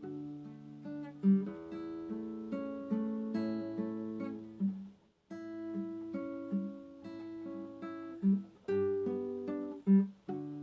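Solo acoustic guitar playing a slow fingerpicked melody over low bass notes, with no voice. The playing stops briefly about halfway through, then goes on.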